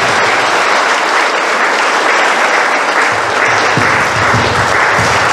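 Crowd applauding steadily, with no speech over it.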